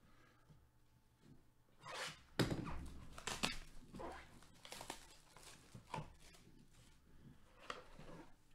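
Plastic shrink wrap being torn and pulled off a sealed trading-card hobby box, with irregular crinkling and rustling and a dull thump about two and a half seconds in.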